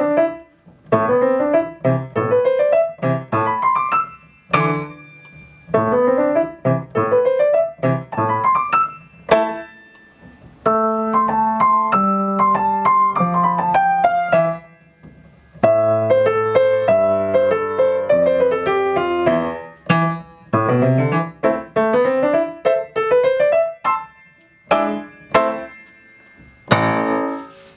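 Acoustic grand piano played with both hands: a short, lively beginner piece in phrases of quick, even notes, each phrase broken off by a brief pause.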